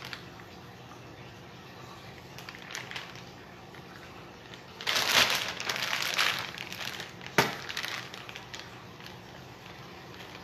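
Rustling and crinkling of something being handled, starting about five seconds in and lasting a second or two, followed by a single sharp click; a faint steady hum runs underneath.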